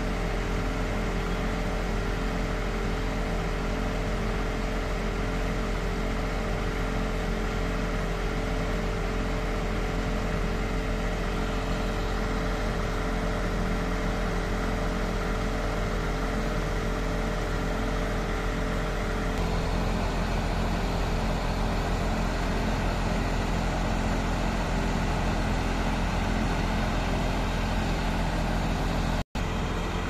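360-horsepower diesel engine of a MAN truck carrying a Schwing Stetter S36X concrete pump, running steadily. About two-thirds of the way through, the higher tones drop away and the low rumble grows.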